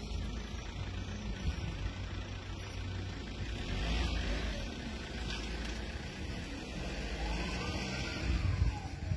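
Low, steady rumble of road traffic from city streets. A faint whine rises and falls near the end.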